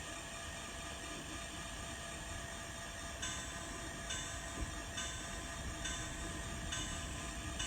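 Diesel locomotive engine sound from the N scale SD40-2's DCC sound decoder, playing through the model's small speaker and running steadily. From about three seconds in, a regular pulse comes roughly once a second.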